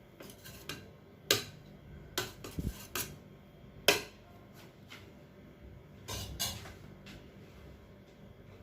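Serving spoon clinking and scraping against a cooking pot as rice is spread in it: a scattered run of sharp knocks, the loudest about a second in and again about four seconds in, with a few more near six seconds.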